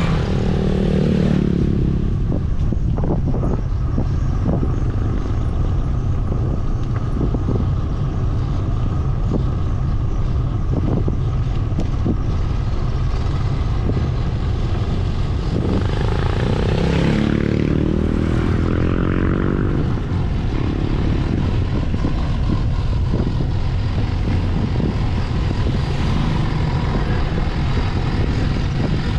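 Steady wind rumble on the microphone of a moving bicycle. A motor vehicle's engine rises and falls in pitch as it passes, once at the start and again about sixteen seconds in.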